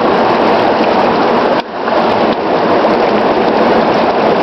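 Rushing river water: a loud, steady rush that dips briefly about a second and a half in.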